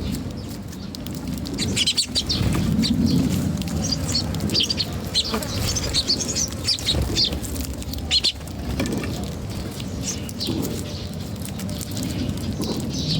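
Small birds chirping, many short high chirps scattered throughout and overlapping, over a steady low rumble.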